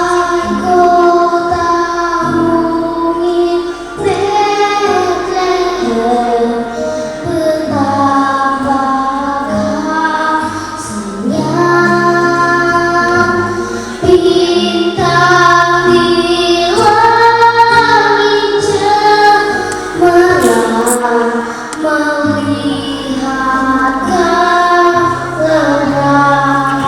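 A child singing a song solo over backing music, with long held notes that waver in places.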